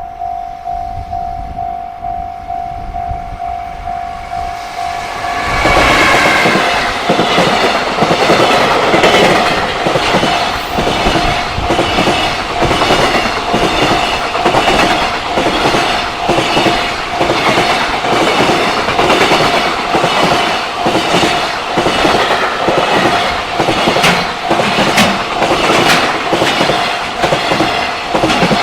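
A Japanese level crossing's warning bell rings steadily. About five seconds in, a JR Freight train arrives and runs past, its wagons' wheels clattering in an even rhythm over the rail joints, with the bell still ringing underneath.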